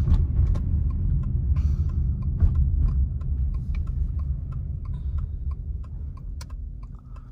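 Car cabin noise: a low road-and-engine rumble that eases off near the end as the car slows for a turn, with the turn signal ticking in an even rhythm.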